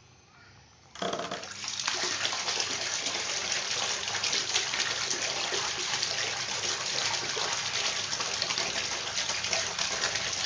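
Small submersible fountain pump switched on about a second in, its jet of water splashing steadily back into a basin of water. The spray is strong again, the pump's impeller freshly cleaned of debris.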